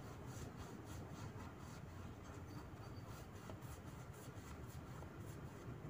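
Paintbrush stroking paint onto the base of a masonry fence wall: a faint, quick, repeated scratchy brushing, about three strokes a second, over a low steady hum.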